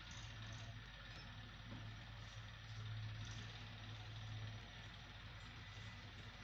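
Low steady hum over a faint even hiss, with no speech; the hum grows a little louder through the middle and eases off again.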